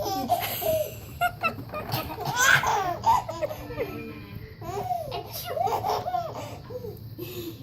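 Baby laughing in a run of short, uneven giggles and laughs, with a louder burst about two and a half seconds in.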